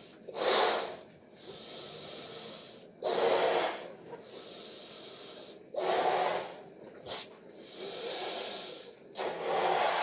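A latex balloon being blown up by mouth: four short, loud breaths, each followed by a longer, quieter stretch of blowing into the balloon. A brief click comes about two thirds of the way through.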